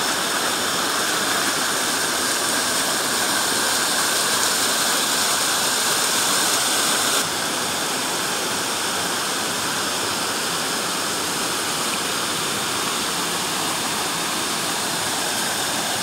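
Rocky mountain stream rushing down in small cascades into a pool: a steady, fairly loud rush of water that turns a little softer about seven seconds in.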